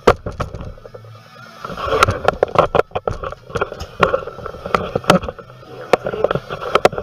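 Irregular sharp clicks and knocks, with rattling in between, from a door handle and lock being worked by hand. The lock is stuck and won't move.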